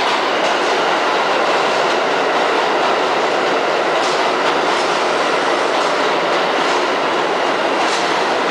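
New York City subway train running past the station platform: a loud, steady rumble of wheels on rail, with a few sharper clacks over rail joints in the second half.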